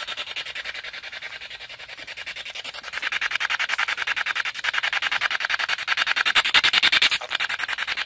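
Handheld spirit box (a radio scanner sweeping rapidly through stations): choppy static pulsing many times a second with brief fragments of broadcast sound, quieter at first and louder from about three seconds in.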